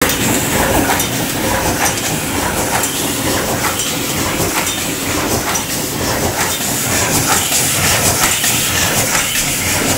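Multi-station cold forging forming machine (bolt former) running, a steady metallic clatter with regular knocks as it heads rivets.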